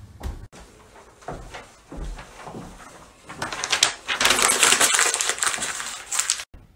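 A sheet of paper being crumpled into a ball by hand: a dense crackling that starts about three seconds in and lasts about three seconds, cut off abruptly.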